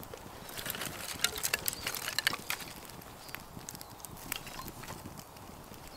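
Dry twigs and kindling crackling and snapping at a small campfire as it is fed by hand: a quick run of sharp cracks for about two seconds, then fewer and fainter ones.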